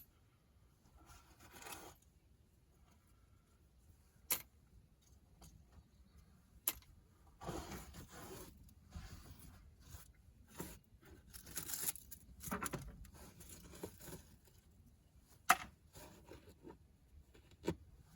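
Loose coins being gathered by hand and dropped into a small basket: scattered sharp clicks and clinks, with rustling and scraping between them.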